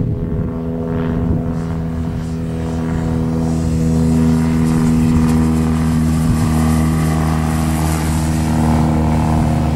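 Motor and propeller of a large radio-controlled P-47 Thunderbolt model in flight: a steady drone that grows louder a few seconds in as the plane comes closer overhead.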